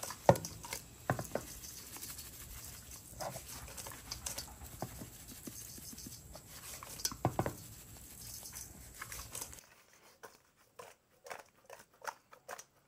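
Seasoning shaker shaken over raw shrimp in a stainless steel bowl, with the wet shrimp tossed in the bowl near the end: irregular soft taps and pattering with a few sharper knocks.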